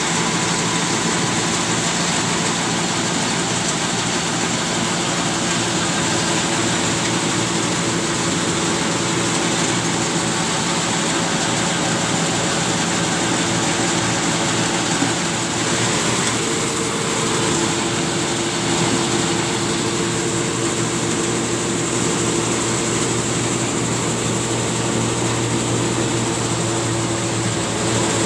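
Engine running steadily. About sixteen seconds in its tone shifts and a new steady hum joins in.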